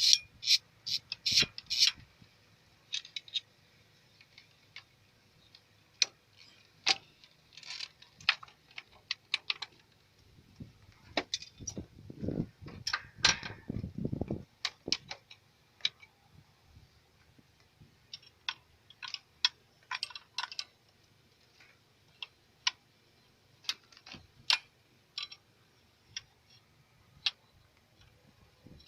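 Metal hand tools clicking, tapping and clinking against an engine's fuel injection pump and fittings during its removal, in irregular single knocks, with a denser spell of rattling a little before halfway.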